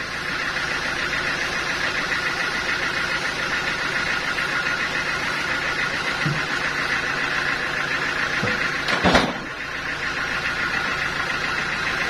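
Sawmill machinery running steadily, with a single sharp knock about nine seconds in.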